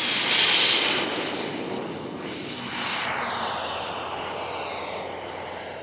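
Radio-controlled model aircraft flying past, loudest about half a second in, its engine note then falling in pitch and fading as it moves away.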